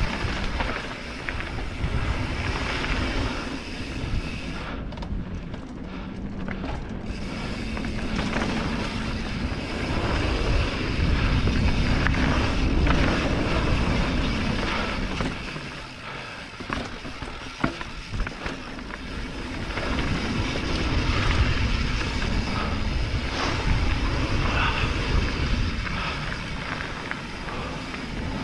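Mountain bike riding down a dirt singletrack: wind rushing over the microphone and the tyres and frame rattling over dirt and rocks, swelling and easing with speed. There are a few sharp knocks about two-thirds of the way through.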